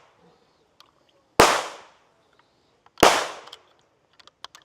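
Two gunshots about a second and a half apart, each followed by a short echoing tail, then a few faint clicks near the end.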